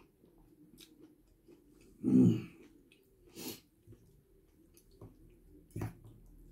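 A person eating a noodle dish: quiet chewing and soft spoon and fork sounds. About two seconds in there is a short, loud vocal noise from the eater, about a second later a breath, and a short sharp sound near the end.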